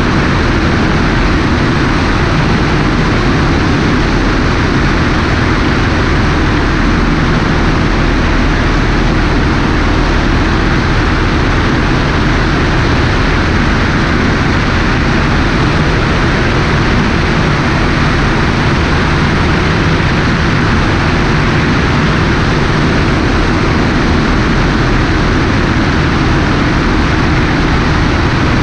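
Cessna 150 in cruise flight, its four-cylinder Continental O-200 engine and propeller droning steadily. Heavy wind rush over the wing-mounted camera runs under the engine.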